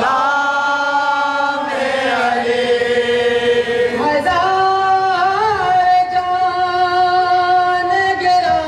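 Male voice chanting a noha, a Shia mourning lament, into a microphone in long drawn-out notes. Partway through it settles on one steady note held for several seconds.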